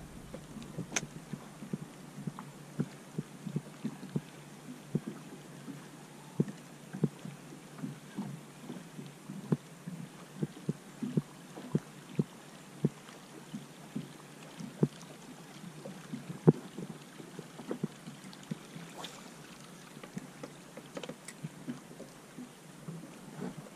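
Small waves slapping against the hull of a fishing boat: irregular low knocks, a few a second.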